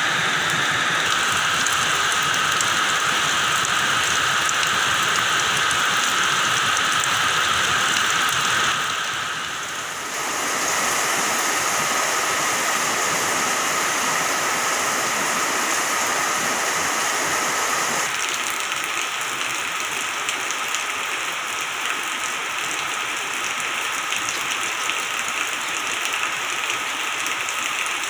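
Heavy rain falling steadily. The sound dips briefly about a third of the way in and changes tone a little past the middle.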